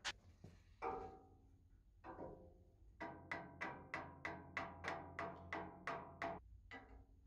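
Mallet tapping the cast-iron fence of a Morso mitre guillotine against a steel square to bring it square. A few single knocks, then a quick run of about a dozen ringing taps, roughly three a second, and one last tap near the end.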